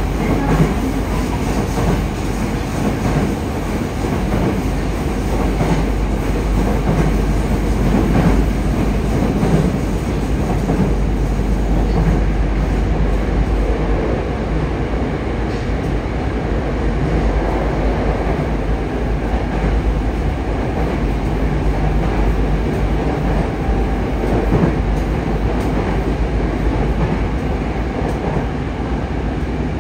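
Running noise inside a Yokohama Municipal Subway 3000S car with Mitsubishi IGBT-VVVF control, travelling at speed through a tunnel. Wheels rumble steadily on the rails, with occasional clicks and knocks from the track.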